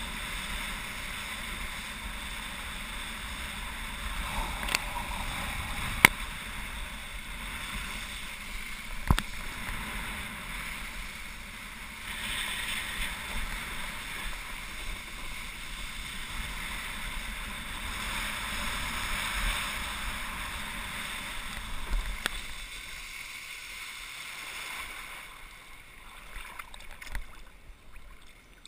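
Wakeboard planing across lake water behind a cable tow: a steady hiss of spray and water rush mixed with wind on the helmet camera, with a few sharp knocks in the first third. The rush fades in the last few seconds as the board slows and settles into the water.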